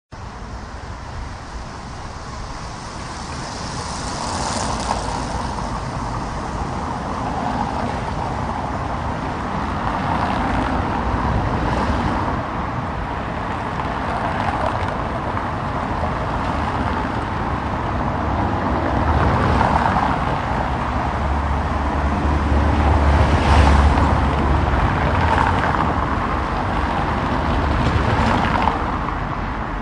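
Road traffic on a paved road: a steady wash of tyre and engine noise with distant city ambience, swelling several times as individual cars pass. The loudest pass, about three quarters of the way through, brings a deep engine rumble.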